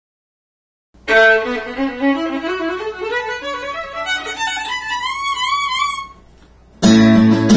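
Fiddle music: a climbing run of bowed notes ending on a held note with vibrato, then a short pause and an acoustic guitar strumming in near the end.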